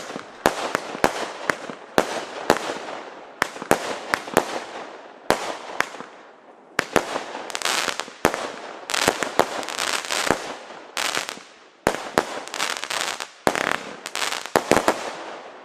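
Klasek C6420B Breakboo fireworks cake firing: a fast, irregular run of sharp bangs as its shots burst in the air, with crackle filling the gaps between them.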